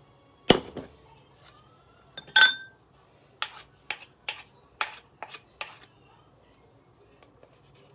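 Wooden spatula knocking and scraping in a saucepan as the last of the fruit filling is scraped out. There is one sharp knock, then a ringing clink, then a run of about seven quick taps.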